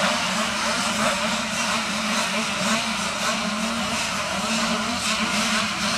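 A starting grid of 65cc two-stroke motocross bikes running together at the start gate, many engines idling and blipping at once in a steady, wavering buzz.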